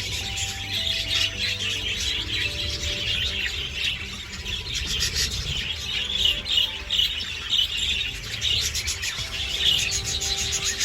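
A flock of budgerigars chattering and chirping continuously, a dense stream of rapid high chirps.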